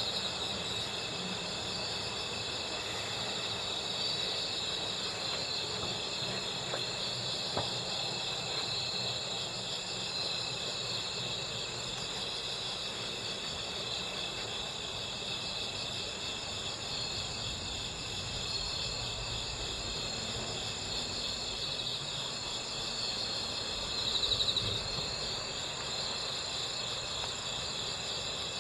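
Crickets (Gryllidae) calling together in a steady, high-pitched, finely pulsing chorus. One trill swells louder for a moment late on.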